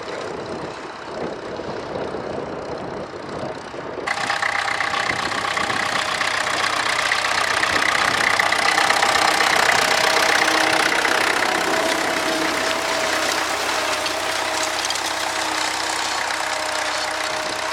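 Tractor engine running steadily. About four seconds in it becomes louder and clearer, with a steady whine over it, growing louder toward the middle and then easing off slightly.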